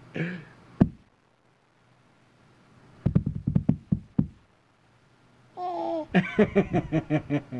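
Two quick runs of knocking, about seven knocks a second, each lasting a second or so. A short pitched vocal sound comes just before the second run.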